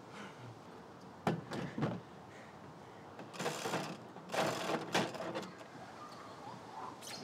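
A person moving about on a playground climbing structure: a few knocks and thumps on the equipment, then two longer rushing scrapes a little under a second apart.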